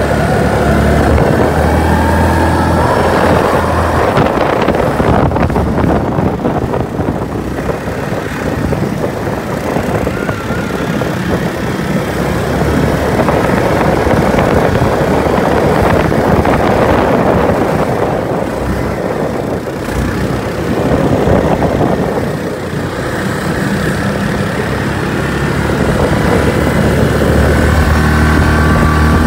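ATV engines running as quad bikes drive across snow, the engine note rising and falling with the throttle.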